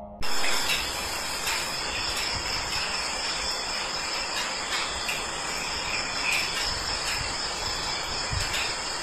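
Steady chorus of chirring insects with a constant high-pitched whine. It starts abruptly just after the beginning and holds even, with a few faint ticks.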